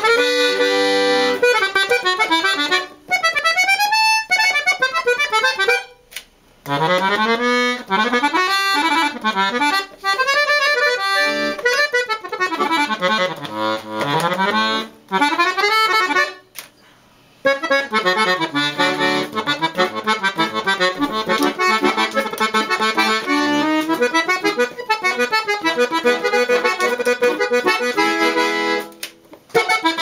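Parrot piano accordion played solo, with a melody on the treble keyboard over bass-button accompaniment. It runs in phrases broken by short pauses, the longest about sixteen seconds in.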